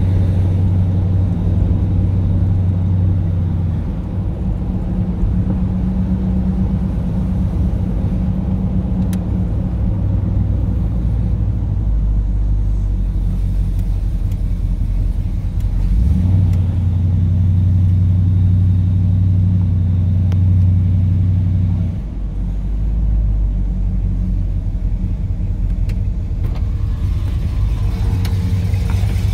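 Supercharged 5.7 L 350 V8 (B&M Whipple blower, Flowmaster dual exhaust) in a 1984 Chevrolet C10 pulling along at moderate speed, heard from inside the cab as a low, steady exhaust drone. Its pitch and level step up about halfway through and drop off suddenly a few seconds later as the throttle changes.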